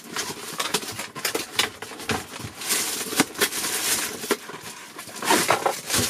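A cardboard retail box being opened and handled by hand: its flap scraping open, with a run of taps, clicks and cardboard rustling, busiest about halfway through and again near the end.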